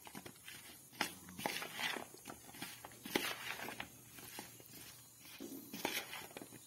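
Metal spoon stirring and tossing spice-coated cut okra in a bowl: soft, irregular scrapes and clicks of the spoon against the bowl and the pieces.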